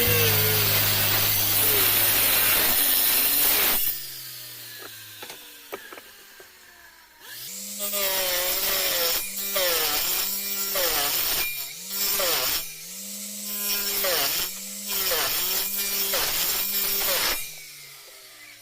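Homemade mini table saw driven by a 795 DC motor cutting wood. The motor runs up with a steady whine, and from the middle on it bogs down and recovers again and again as the blade bites into the wood, its pitch dipping with each cut.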